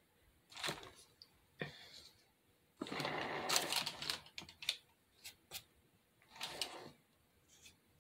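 Handling sounds of a fake cake being worked on: a rustling scrape of about a second as the frosted cake dummy is set down on its board, then light clicks and scrapes of a wooden craft stick dabbing on fake frosting.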